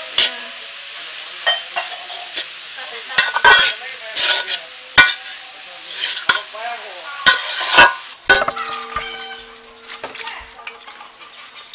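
Chopped onion leaves sizzling in hot oil in a pan, stirred with a spatula that scrapes and clacks against the pan again and again. About eight seconds in a metallic clang rings on for about two seconds, then the sound drops to softer handling.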